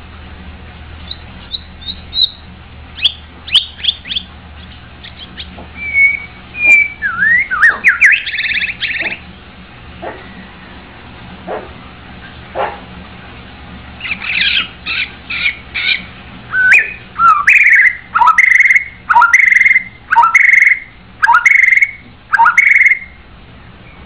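White-rumped shama singing: scattered short chirps and clear whistled notes. Then, in the last third, a run of loud repeated notes about a second apart, each a quick downward slur ending on a bright whistle.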